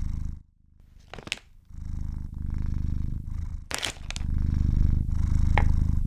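Domestic cat purring close to the microphone, a low rumble that swells and pauses with its breathing, breaking off briefly about half a second in. Two short noises cut through it, about a second in and near the middle.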